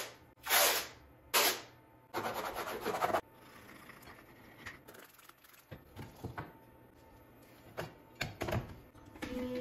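Hand work on a CNC machine's bed: three short hissing bursts in the first second and a half, then a rasping, crackling stretch about two seconds in, then scattered light clicks and taps.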